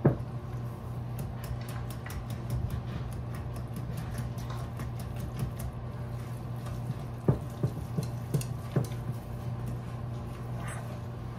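Wire whisk mixing thick banana bread batter in a glass bowl, the wires ticking quickly against the glass, with several louder knocks a little past the middle.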